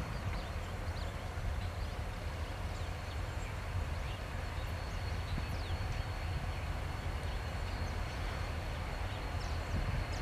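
Class 37 EMD diesel locomotives approaching slowly in the distance, their engines a steady low rumble. A thin steady high tone and small chirps sit above it.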